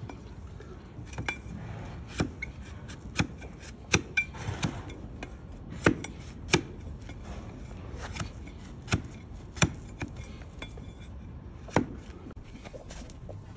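Broad flat hoof-trimming blade paring horn off a donkey's hoof on a wooden stool: about a dozen sharp chopping cuts at uneven intervals.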